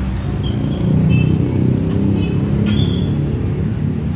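Road traffic: a motor vehicle's engine running close by with a low rumble that swells about a second in, with a few short high-pitched chirps over it.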